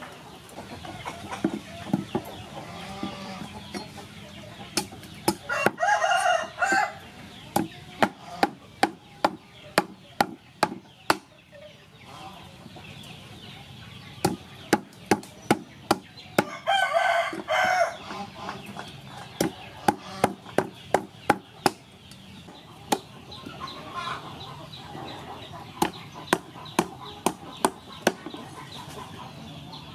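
Runs of sharp knocks, about two a second, from a knife chopping sugar cane on a wooden chopping block. A rooster crows twice, once about six seconds in and again near the middle, each crow lasting about a second.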